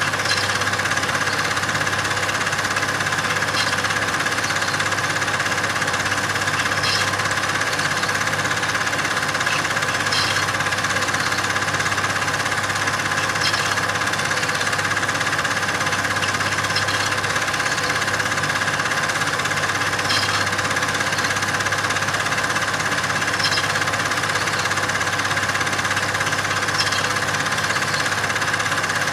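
Steady mechanical running noise, unchanging in level and pitch, with a faint click about every three seconds.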